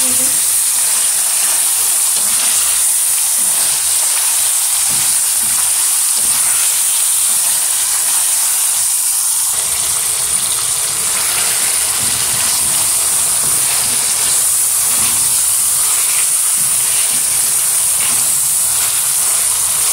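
Raw chicken pieces sizzling loudly in hot oil in a frying pan, a steady hiss, with the light scraping of a wooden spatula stirring them.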